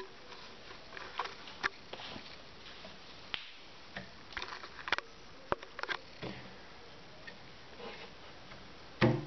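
Scattered light clicks and knocks of handling around a wooden box. Near the end, a hand strikes the home-made plywood cajon once, giving a loud hit with a deep bass tone, the first of a run of strokes.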